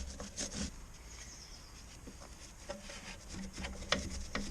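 Short rhythmic strokes while a motorcycle chain is cleaned with paraffin. There is a quieter pause in the middle, then irregular strokes again, over a steady low hum.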